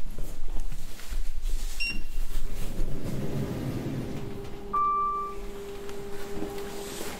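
A lift runs with a low rumble and a steady hum, and a single short electronic beep sounds about five seconds in.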